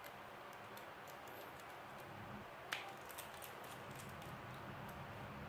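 Faint small clicks and taps of tools and phone parts being handled on a repair bench, with one sharper click a little before halfway, over a faint steady hum.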